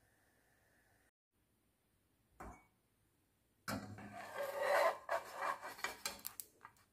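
Metal spatula scraping across a nonstick frying pan as it is slid under a pancake to lift it: about three seconds of rubbing with small clicks, starting about halfway through. Before that, near silence with one short scrape.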